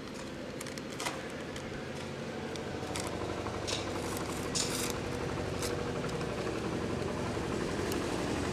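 A paper courier envelope being torn open and the letter inside handled: a few short, crisp rips and rustles. Underneath, a steady low hum slowly grows louder.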